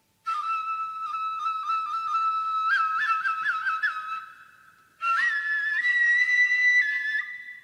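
Solo nohkan, the bamboo Noh flute, playing two high held phrases: the first has a quick run of ornamented notes in its middle, and after a short pause the second steps up to a higher held note.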